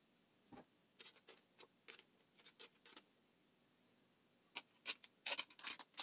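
Light clicks and taps of small wooden parts and their metal bolts being handled and fitted together by hand: a loose run of clicks, a short pause, then a quicker cluster near the end.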